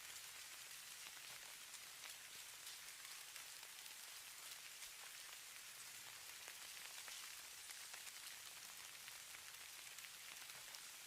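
Steady, faint hiss of falling snow, peppered with many tiny ticks of flakes or icy grains striking a surface.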